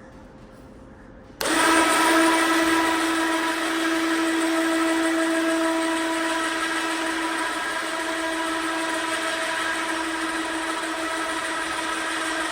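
A motor-driven machine switches on abruptly about a second and a half in and runs at a steady speed with a constant, high whine.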